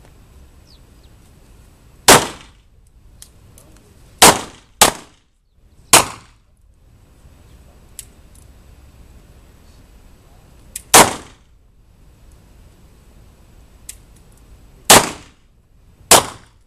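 Revolver shots fired one at a time by several shooters: seven sharp cracks at irregular intervals of about half a second to four seconds, each dying away quickly.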